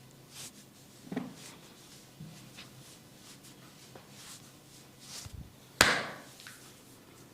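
A massaging barber's hands on a bare back: scattered slaps and snaps on the skin, a few soft ones, then one loud crisp crack about six seconds in.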